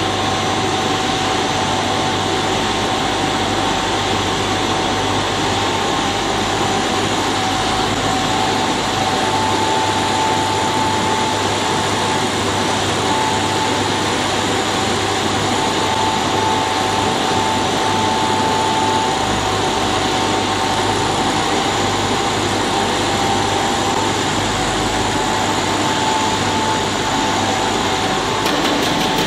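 Machinery of a dry pet food extrusion line running: a loud, steady hum and hiss with a constant high whine, and a second whine that comes and goes.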